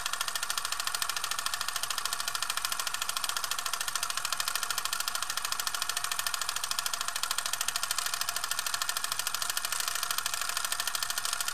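Steady, fast mechanical clatter of evenly spaced rapid ticks, a sound effect laid under an animated title sequence.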